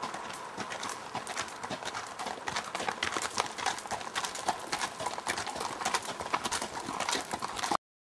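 Hoofbeats of a horse walking on a rocky dirt trail, a steady run of clip-clops. The sound cuts off suddenly just before the end.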